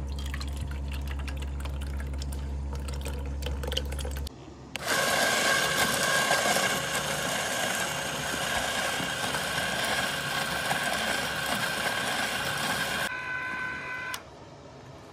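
Electric ice cream maker's motor running on a wooden bucket of ice, a steady whine over the churning of the canister in the ice. Near the end the churning noise drops away and the motor whine cuts off. For the first few seconds, before it starts, custard base is poured into the canister over a low steady hum.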